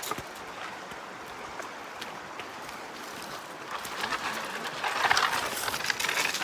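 Steady rush of stream water, growing louder about four seconds in, with scattered short knocks and scuffs.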